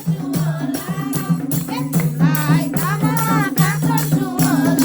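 Nepali dohori folk music: a quick, steady drum beat under a repeating low melodic line, with a wavering melody over it.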